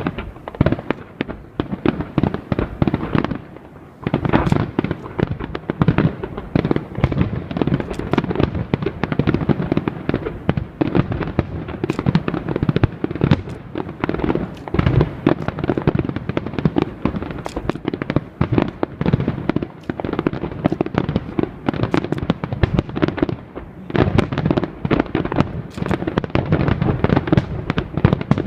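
Fireworks display: a dense, rapid barrage of aerial shell bursts, bang after bang with crackle between, easing briefly about four seconds in.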